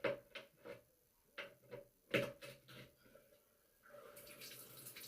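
A string of short knocks and clicks, then about four seconds in water starts to run from the tub faucet, growing louder as the water comes back on after the cartridge replacement.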